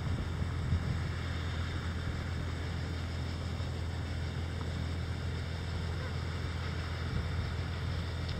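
Steady low hum of a cranberry water-reel harvester's engine running, with wind rumbling on the microphone.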